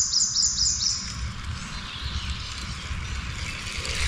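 A songbird singing a fast series of short, high, down-slurred notes, about five a second, that stops about a second in, over a low rumble.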